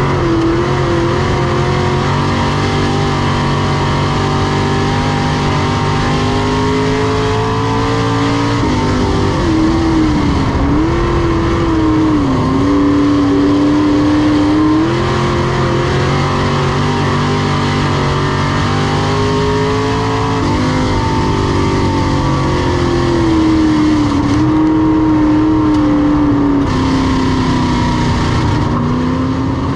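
Semi late model race car's V8 engine at racing speed: its pitch climbs steadily on throttle, then drops sharply as it backs off, twice over, with wavering dips in between.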